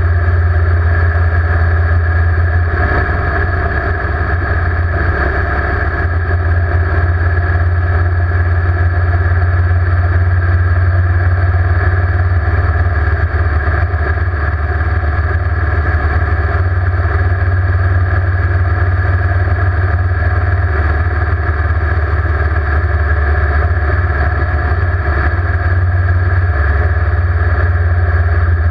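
Motorcycle cruising steadily on the open road, its engine running at an even speed under a heavy low rumble of wind buffeting the microphone.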